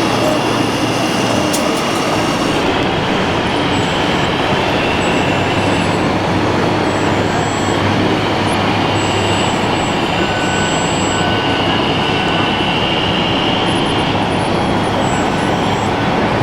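Electric motors of radio-controlled scale construction machines whining in short high-pitched spells that start and stop every second or two, over the steady noise of a busy exhibition hall.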